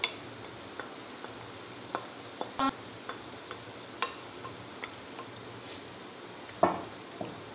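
Marinated minced meat and tomato-spice masala sizzling in hot oil in a pan, with a spoon clinking and scraping against the bowl and pan as the keema is scraped in. One louder ringing knock comes near the end.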